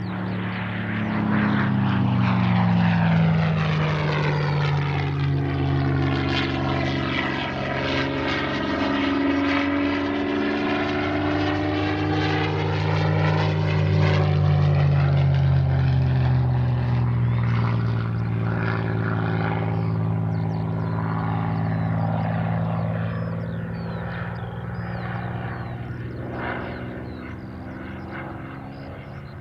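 Supermarine Spitfire Mk IX's Rolls-Royce Merlin V12 engine and propeller in a low display pass. The engine note drops in pitch as it goes by, swells again a few seconds later as it comes back around, and fades near the end.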